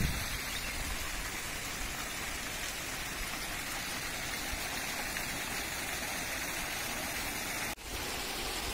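Garden fountain jets splashing into shallow pools: a steady hiss of falling water, with a brief dropout near the end.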